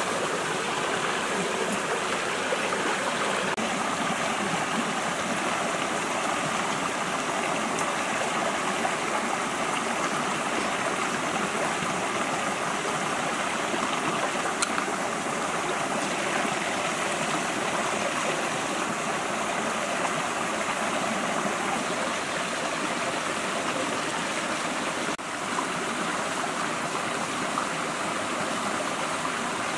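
Shallow rocky stream flowing, a steady rush and babble of water, with a few light clicks scattered through it.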